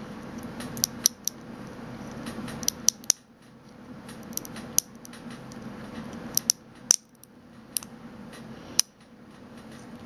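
Breakaway support material being cracked and peeled by hand off a small FDM-printed ABS plastic cup: about a dozen irregular sharp clicks and snaps, the strongest about three, seven and nine seconds in.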